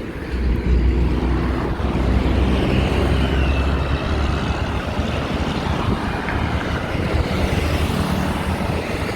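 Road traffic: a motor vehicle's engine running close by with a steady low hum that fades after about four to five seconds, over continuous traffic noise.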